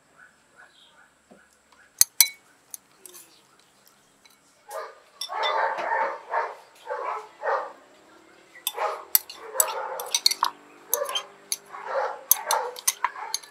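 A dog barking repeatedly from about five seconds in, mixed with sharp clinks of a metal spoon knocking against a glass bowl and a granite mortar as ingredients are scraped in.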